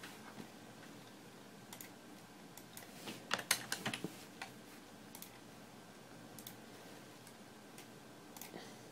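Faint, scattered clicks of someone working a computer, with a quick run of louder clicks about three to four and a half seconds in.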